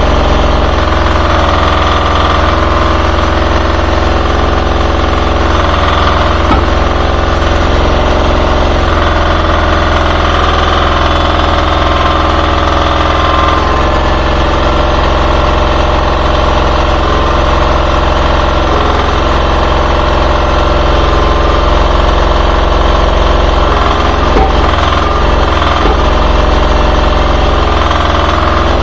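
Engine of a 1.2-tonne Chinese mini excavator running steadily, with a deep, even throb.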